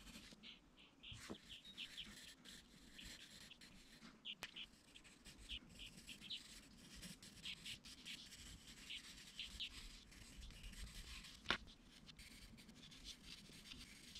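Faint scratching of a coloured pencil shading on paper in short repeated strokes, with one sharper click late on.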